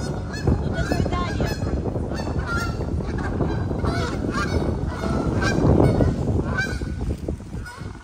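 Waterfowl honking over and over, a quick run of short calls.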